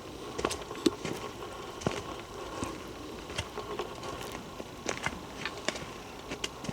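Footsteps and handling noise of a walker carrying a handheld camera on a trail: irregular light clicks and knocks, one or two a second, over a faint steady hum.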